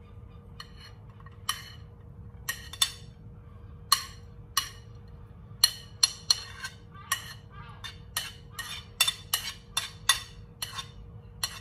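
A metal spoon clinking and scraping against ceramic plates as chopped onion is scooped onto mince. The sharp clinks are sparse at first and come quicker from about halfway through, over a faint steady hum.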